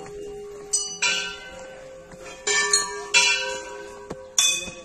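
Hindu temple bells struck by hand about five times at uneven intervals, each strike clanging and then ringing on as it fades.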